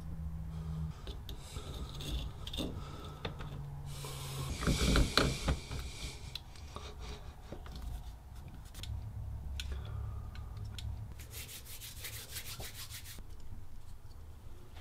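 Rubbing and scraping as hands work metal bathtub faucet trim and valve parts, with a louder stretch of rubbing and clicks about four to six seconds in and a fast run of fine rasping ticks around twelve seconds.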